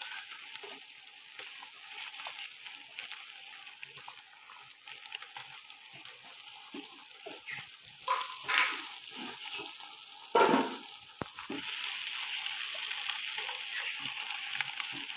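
Steady sizzling hiss from the pot of zarda sweet rice cooking on the gas stove, growing louder about two-thirds of the way through. Soft rustles and a couple of brief scrapes come as pieces of candied fruit are scattered over the rice by hand.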